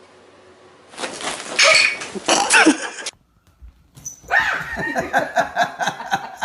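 A pet animal vocalizing in two short bursts: loud bending calls, a brief gap, then a quick run of repeated calls at about four a second.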